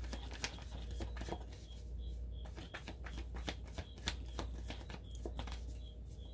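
Tarot cards being shuffled and handled: a run of irregular, quick soft clicks and flicks, over a steady low hum.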